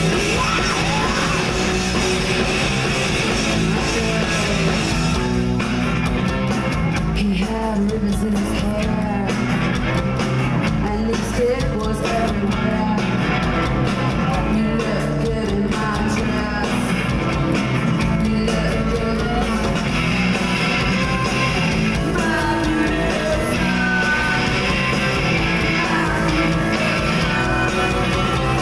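A rock band playing live, with electric guitar, bass guitar and drums, and a woman singing over them.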